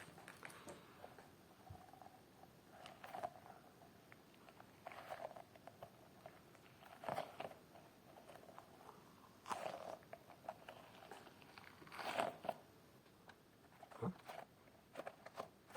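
Soft squishing sounds of a stretchy, slightly sticky dough-filled fidget ball being squeezed and pulled by hand, in short quiet bursts every second or two.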